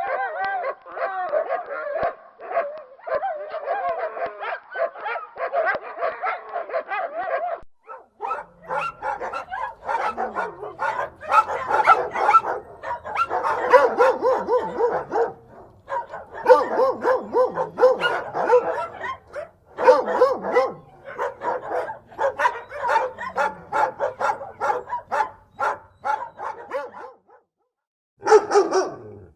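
Several dogs barking loudly over one another in quick, overlapping barks and yips. About eight seconds in it cuts to another recording of heavier barking with a faint low hum underneath, which breaks off for a moment near the end.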